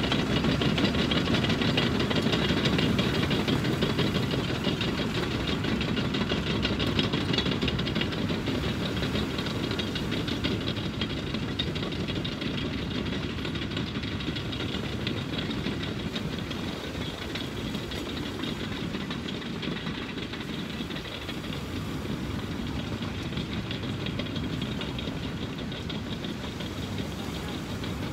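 Tractor engine running steadily as the tractor drives past, slowly fading as it moves away.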